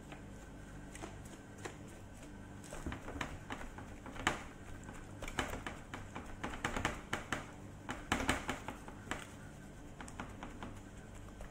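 Plastic-gloved hands rubbing a dry spice mix into raw chicken on a metal baking tray: irregular crackly rustling, squishing and light taps, busiest in the middle, over a steady low hum.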